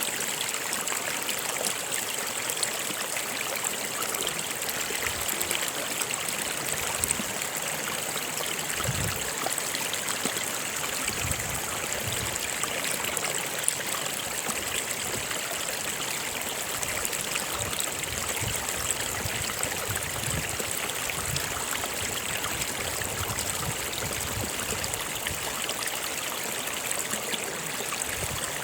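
A stream running steadily over rocks, a continuous rush of water with some trickling.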